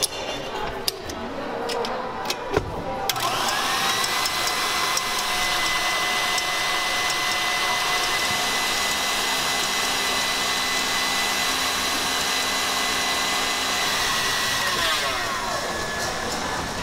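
KitchenAid Artisan stand mixer with its wire whip beating egg whites: after a few clicks and a knock, the motor spins up about three seconds in with a rising whine, runs steadily at high speed, then winds down near the end.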